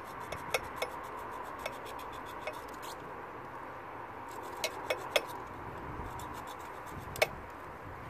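Irregular sharp clicks and clinks of hand tools and fittings being handled while a split rubber fuel hose is cut back, a few louder ones near the start, a cluster in the middle and one near the end, over a faint steady hum.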